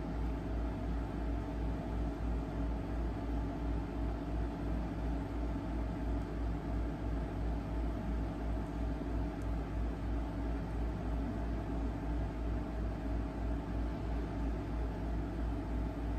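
Steady low hum that pulses at an even rate, with a few faint steady tones above it and a light hiss.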